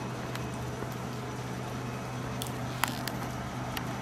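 Steady low hum from a stabled JR West 117 series electric train's onboard equipment, powered up with its lights on. A few sharp clicks, the loudest nearly three seconds in.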